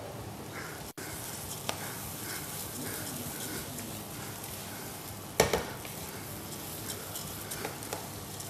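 Food sizzling in hot oil in a pan, a steady hiss. About halfway through there is one sharp knock of a utensil or pot, and a few lighter clicks.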